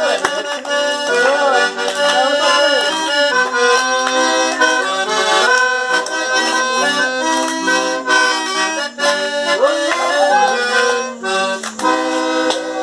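Sanfona (piano accordion) playing a tune, a melody moving over held chords, with short breaks between phrases.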